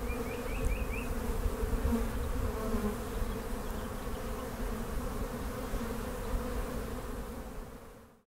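Many honey bees buzzing in a steady, droning hum that fades out near the end. A few faint high chirps sound in the first second.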